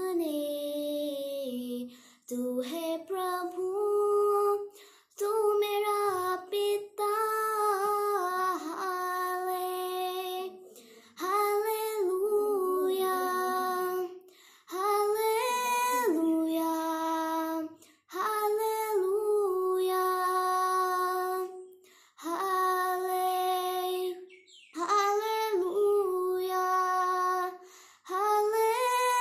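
A young girl singing a Hindi Christian worship song solo and unaccompanied, in phrases of long held notes with short pauses for breath between them.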